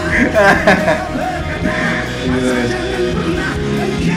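Slow-rock band music from a live performance, with guitar.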